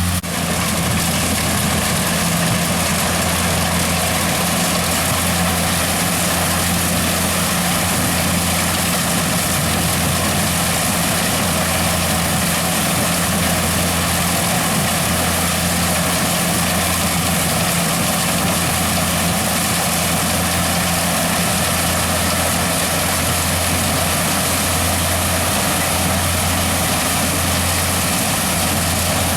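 Corn harvester's engine running steadily, a low, even hum that holds the same pitch and level throughout.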